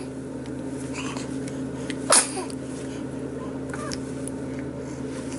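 A young child's sneeze, one short sharp burst about two seconds in.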